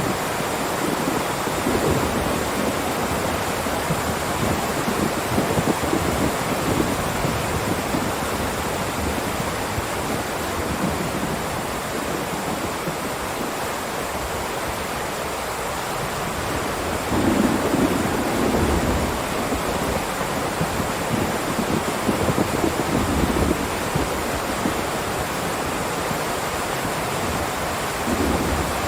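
Heavy rain in a steady downpour, a dense constant hiss, with a few brief louder low surges around the middle and near the end.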